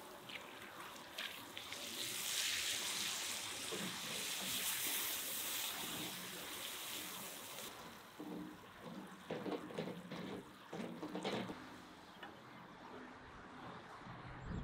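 Thin sauce in a frying pan giving a watery hiss for the first half, then a wooden spatula stirring and scraping through it in short, irregular strokes.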